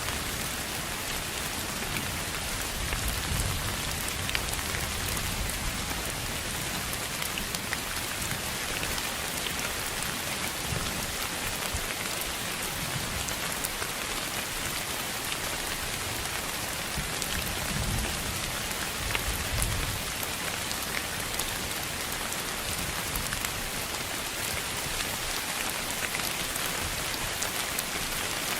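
Steady hiss of sleep noise, billed as pink noise, with the texture of rain falling on a surface. It carries scattered faint ticks like drops, and a few soft low rumbles come near the start and again past the middle.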